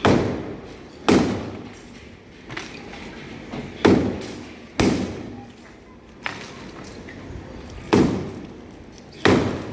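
Heavy impacts of manual house demolition: six loud thuds at irregular gaps of one to three seconds, each dying away over about half a second, with two lighter knocks in between.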